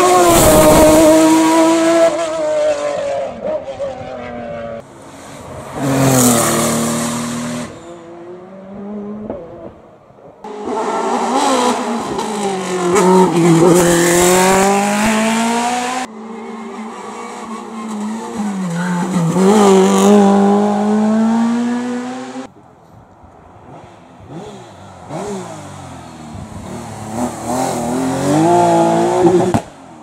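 Hillclimb race cars driven hard uphill one after another, engines revving high and falling in pitch through gear changes and lifts. There are about five separate short runs, each cutting off abruptly.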